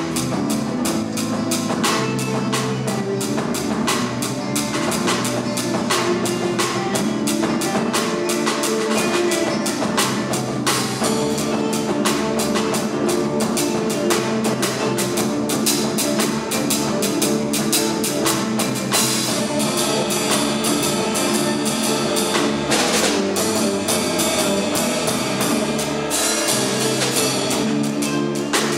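An ensemble of acoustic guitars with a bass guitar and a drum kit playing an instrumental Brazilian piece, with a busy, steady drum rhythm under the strummed and plucked guitars.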